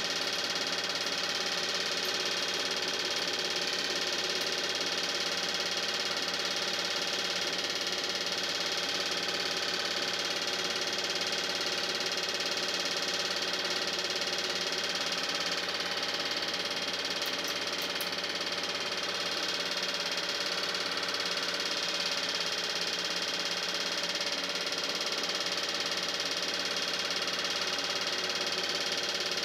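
Steady mechanical running of a film projector, a constant whir made of many steady tones that does not change for the whole stretch.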